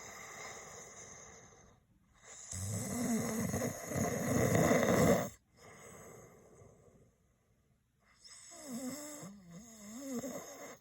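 A man snoring. There is one loud snore from about two and a half to five seconds in, with softer breaths either side, and near the end a softer snore whose pitch wavers up and down.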